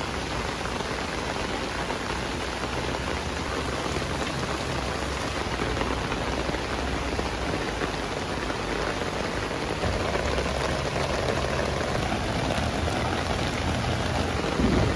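Heavy rain falling steadily on a lawn and on a tent's rainfly, a dense, even patter that gets slightly louder about two-thirds of the way through.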